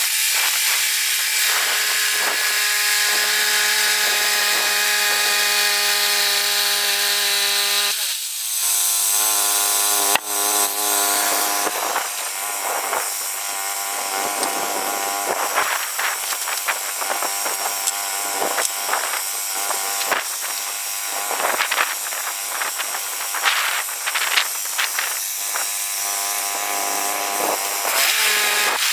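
Woodland Mills HM122 band sawmill's engine running under load as the blade cuts through a red cedar log. Its pitch drops about eight seconds in, and from there the cut goes on rougher, with many short clicks and knocks.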